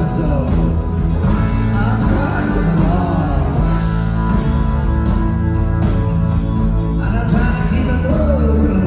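Live rock-and-roll band playing a blues number in a concert hall, with a steady, heavy bass and drum groove and sliding melodic lines over it, recorded from the audience.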